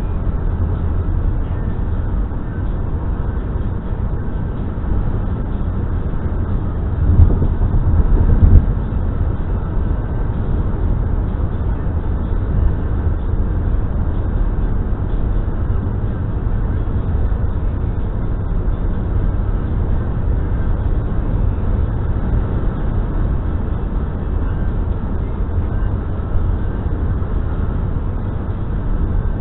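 Steady road and tyre noise of a car driving at speed, heard from a dashcam inside the cabin, with two brief louder thumps about seven seconds in and a second and a half later.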